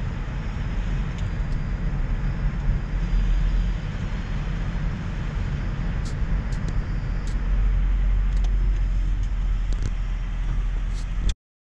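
Car driving slowly, a steady low rumble of engine and road noise, a little louder past the middle, with a few faint clicks, cutting off abruptly near the end.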